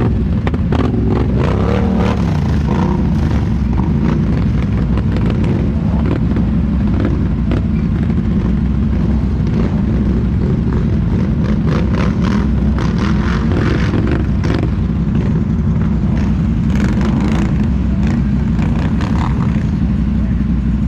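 Off-road vehicle engine running steadily, its pitch rising and falling now and then, with scattered knocks and clatter.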